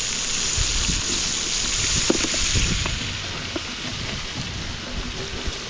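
Steady rushing of a fast river with wind buffeting the microphone. The high hiss thins out about three seconds in, with a few soft knocks as raw shrimp are tipped into the frying pan.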